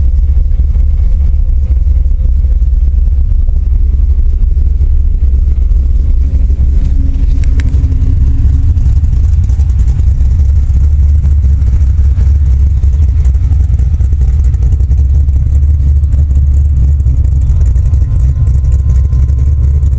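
1971 Plymouth 'Cuda's V8 idling steadily with a deep, loud rumble, after a cold start from sitting a week. A faint brief click comes about seven and a half seconds in.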